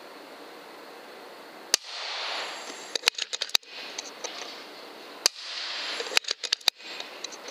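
Moderated FX Impact .25 PCP air rifle firing: a sharp crack about two seconds in, then a short rush of noise and a quick run of clicks. The same crack, rush and clicks come again about three and a half seconds later.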